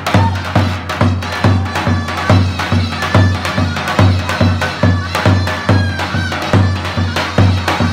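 Live Turkish folk dance music: a davul bass drum beats a steady halay rhythm under a loud, reedy wind-instrument melody.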